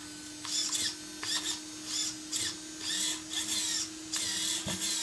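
RC car steering servo whirring in short bursts, two or three a second, as the controller's stick swings the front wheels back and forth.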